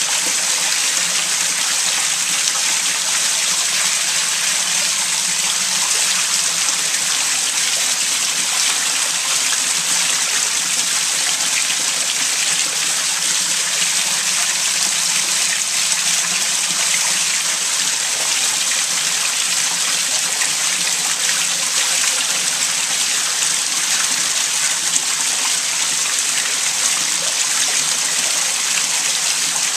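Sewage water rushing steadily as it backs up through a basement toilet and drains during heavy rain, an even, unbroken flow with a faint low hum underneath.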